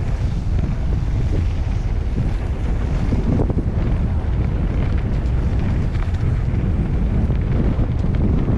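Steady wind rumble on the microphone of a mountain bike being ridden along an off-road trail, with scattered clicks and rattles.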